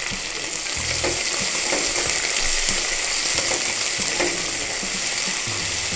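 Sliced shallots and green chillies sizzling steadily in hot groundnut oil in a kadai, with a spoon stirring them and now and then clicking against the pan.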